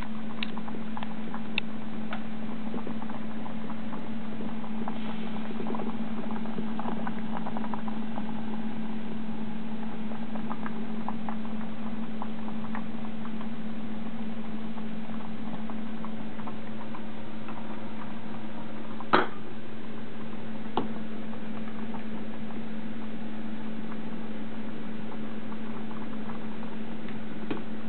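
Saucepan of potatoes, carrot and eggs at a rolling boil, bubbling with a steady patter of small pops over a constant low hum. A sharp knock comes about 19 seconds in and a lighter one about two seconds later.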